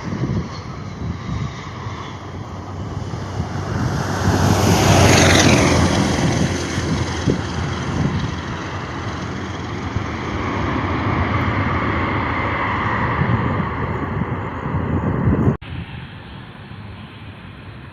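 Jet airliner passing close by: loud engine noise with a high whine that slides down in pitch as it goes past, about five seconds in. Near the end the sound cuts abruptly to a quieter, duller engine noise.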